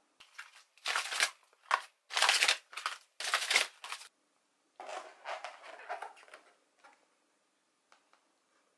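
Crinkling plastic packaging and a rustling kraft paper bag as groceries are unpacked by hand: several loud bursts in the first four seconds, then softer rustling and a few small clicks as stacked plastic salad clamshells are handled.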